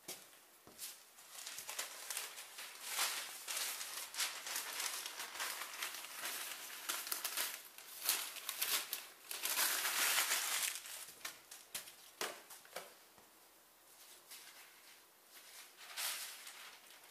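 A rag being handled and tucked into place, rustling and crinkling with small clicks, loudest about ten seconds in.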